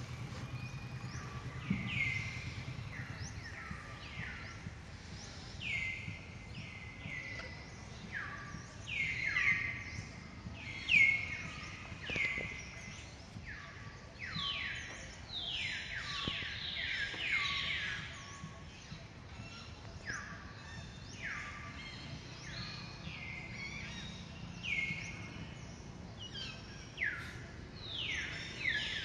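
Birds calling over and over, many short whistles each sliding quickly down in pitch and overlapping several a second.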